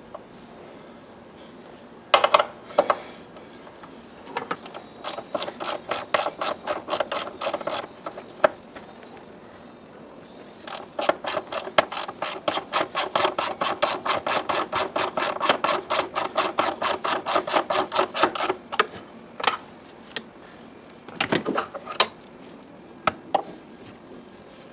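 Hand ratchet wrench clicking in two long runs of even clicks, about five a second, with a few separate knocks of tools and parts in between.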